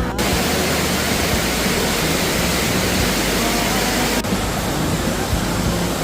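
Waterfall water rushing, a loud, steady noise, with a short break about four seconds in.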